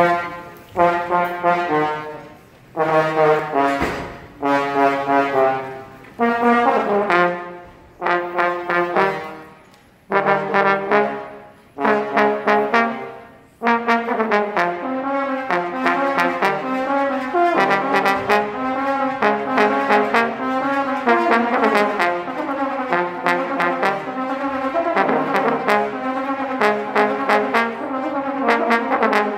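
Trombone trio playing: for the first half, short accented chords that fade away, one roughly every two seconds; then about halfway through, unbroken playing, with the three parts moving together in harmony.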